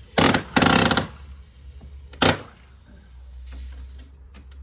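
Small carpenter's nail gun firing nails into wood: a quick pair of sharp shots near the start and a single shot about two seconds in.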